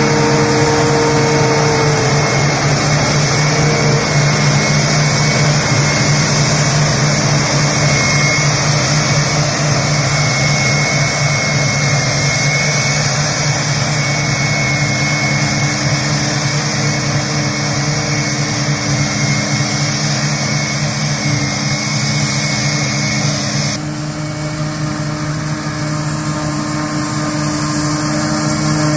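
New Holland self-propelled forage harvester running at working speed while picking up and chopping grass for silage: a loud, steady engine drone with a steady high-pitched whine from the chopping and blowing gear, with the accompanying tractors' engines. The sound changes abruptly about 24 seconds in.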